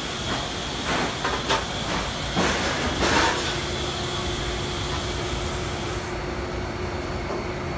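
Steady roar and hiss of commercial kitchen equipment around a salamander broiler, with a handful of clanks and knocks of cookware being handled between about one and three and a half seconds in. A steady hum comes in about three and a half seconds in.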